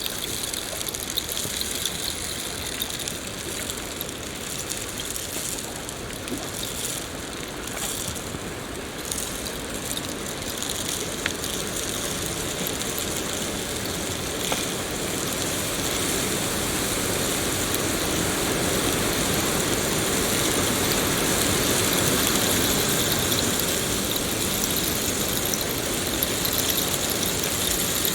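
Steady rain falling, a dense even hiss that grows a little louder about halfway through.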